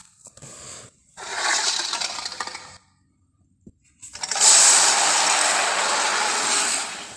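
Two rough, noisy Tyrannosaurus rex roar sound effects: a shorter one, then a louder, longer one lasting about three seconds.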